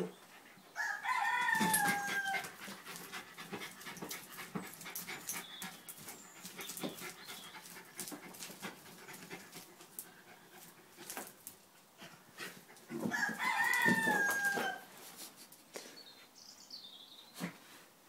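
A Jack Russell terrier sniffing and snuffling along the ground as it hunts for rats, with a patter of short faint sniffs and scuffs. Twice, about twelve seconds apart, a loud, long drawn-out call that falls slightly in pitch is heard.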